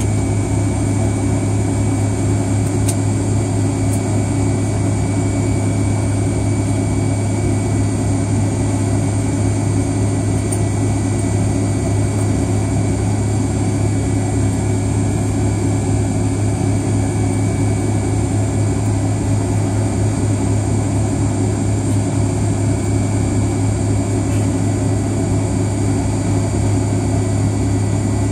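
Pratt & Whitney JT8D turbofans of a McDonnell Douglas MD-88 idling, heard inside the rear cabin: a steady low drone with a thin, even high whine over it.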